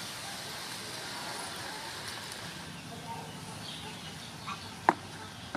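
Wooden spatula tossing spaghetti in a metal wok, with one sharp knock against the pan near the end. Faint bird chirps in the background.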